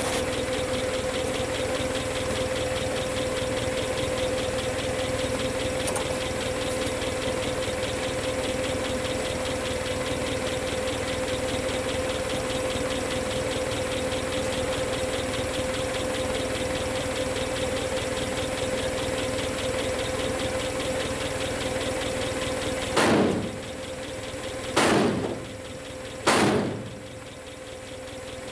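An engine idles steadily with a constant hum. Near the end come three loud hammer blows on steel a bit under two seconds apart, driving out the cut bolts that hold the wrecker bed down.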